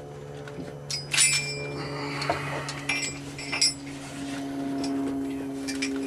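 Metal ratchet-strap buckle clinking and clicking as it is handled and the webbing is threaded through it, with several sharp metallic clinks, the loudest about a second in and more around three and a half seconds, over a steady low hum.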